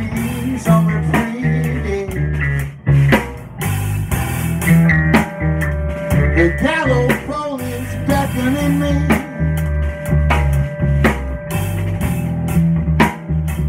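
Live drum kit and guitar playing together in an instrumental passage of a song, with steady drum hits and strong low notes under the guitar.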